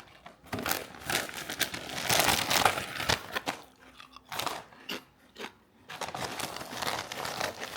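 Crinkling of a potato-chip bag and crunching of potato chips being bitten and chewed. It comes in dense crackly bursts for the first few seconds, a few scattered crunches in the middle, and another run near the end.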